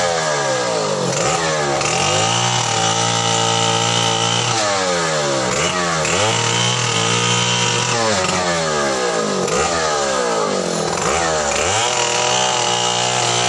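Two-stroke chainsaw cutting through the limbs of a felled tree, its engine held at high revs through each cut and dropping back then climbing again several times between cuts.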